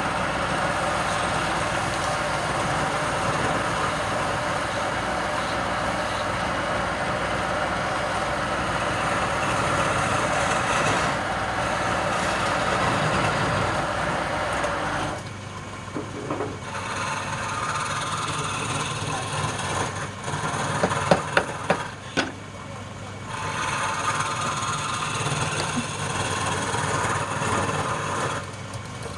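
Wood lathe running steadily while a tool works the spinning wood. About halfway through, the low motor hum drops away while the working noise goes on, and a few sharp knocks come near the two-thirds mark.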